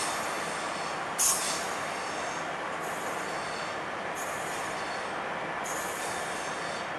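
Koleje Śląskie 22WEd electric multiple unit rolling over points and curved track with a steady rumble. Short bursts of high-pitched wheel squeal come on top, the loudest about a second in and weaker ones later.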